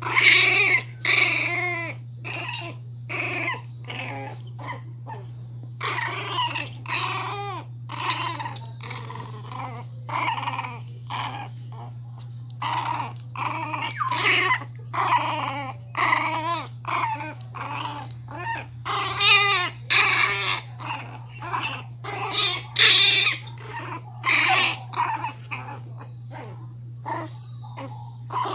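Puppies, among them a miniature pinscher, play-fighting in a tug-of-war over a cloth toy, growling and letting out short high yips and whines in quick succession.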